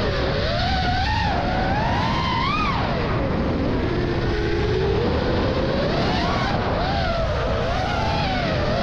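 FPV freestyle quadcopter's brushless motors and propellers whining, the pitch climbing and falling with the throttle as it flies: high about two and a half seconds in, lowest around the middle, then rising and wavering again. A steady rush of air runs underneath.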